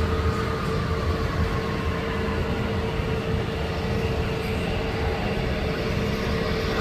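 Airliner jet engines running: a steady low rumble with a steady whine and a higher tone that slowly falls.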